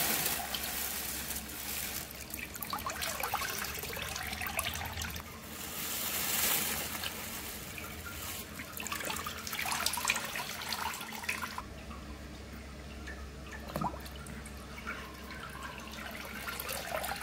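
Water sloshing, trickling and dripping in a hydrographic dip tank as a painted deer skull mount is pushed down into the water and lifted back out, with water running off it.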